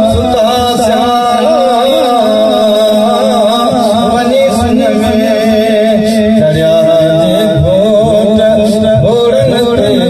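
A man's voice chanting in a melodic, ornamented style through a microphone, with long held notes that waver up and down.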